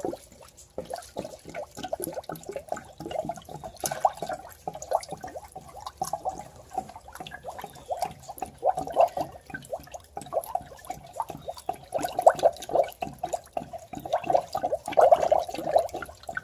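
Coolant poured from a jug into the radiator through a filler funnel, gurgling in quick, uneven pulses as the system fills.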